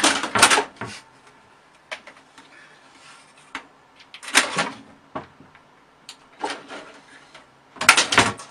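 A cat scrambling and clawing at the side of a computer tower: a few short bursts of scraping and knocking against the case with quieter gaps between, the loudest near the start and near the end.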